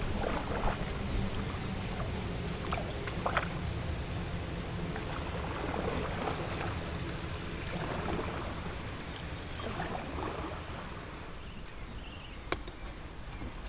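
Paddle strokes from an inflatable kayak dipping and swishing in calm canal water, a stroke every second or two, over a steady low rush. There is a sharp click near the end.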